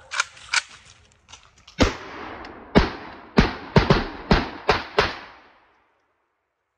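Gunshots from an AK-pattern Draco pistol fitted with a binary trigger. There are about ten sharp shots, the later ones in quick pairs a third of a second apart, each trailing off in an echo.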